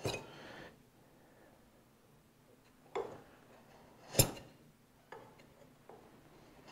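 Marking knife scoring a line across the edge of a wooden board against a combination square: a short scrape at the start, then a few light clicks and taps as the knife and square are set in the line, the sharpest about four seconds in.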